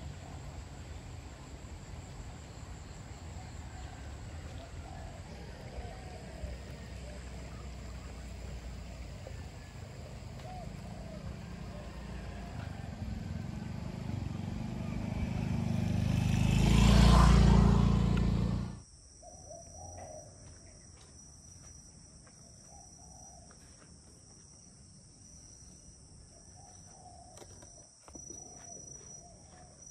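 A motor vehicle coming closer and growing steadily louder over several seconds, cut off abruptly at its loudest. After that, a quieter background of bird calls and a thin, high, pulsing insect buzz.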